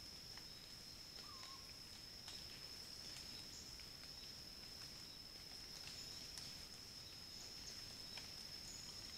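Faint woodland ambience: a steady high-pitched drone, like an insect trill, with scattered faint ticks and rustles and one short faint chirp about a second in.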